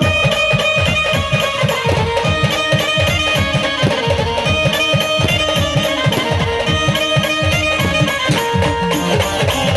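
Khandeshi brass band playing an instrumental passage of an Ahirani folk song: a fast drum beat, each stroke dropping in pitch, under long held melody notes.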